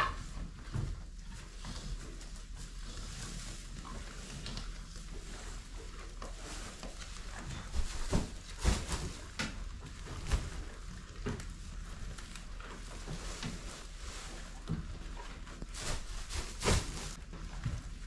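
Small square hay bales thrown off a stack, landing on the barn floor with dull thuds; a few separate knocks come spread out, the loudest about nine seconds in and near the end, with the rustle of hay and footsteps on the bales between them.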